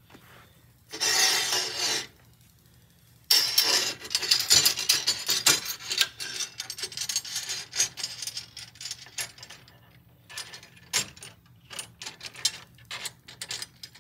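Metal mounting hardware handled: bolts and an aluminium rail clinking and scraping against an aluminium Z-bracket on a solar panel frame. A rasping slide comes about a second in, a spell of dense rattling follows from about three seconds in, and then scattered light clicks.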